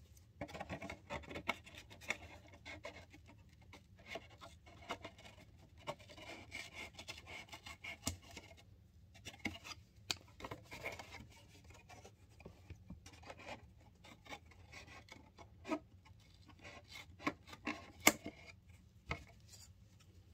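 Scissors cutting the sides off a thin cardboard cornstarch box, with the cardboard scraping and crackling as it is handled. A dense stretch of cutting and rustling gives way to scattered snips and taps, with one sharp click near the end.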